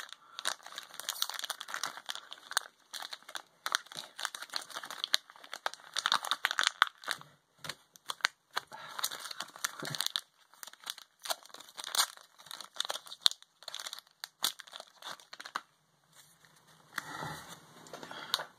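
Foil trading card booster pack wrapper crinkling and tearing as it is opened by hand, in irregular crackly bursts that stop about three-quarters of the way through.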